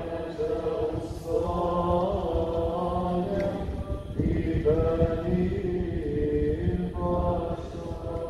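Maronite liturgical chant: voices singing a slow hymn during Mass, in long held phrases with short breaks about a second in, about four seconds in and about seven seconds in.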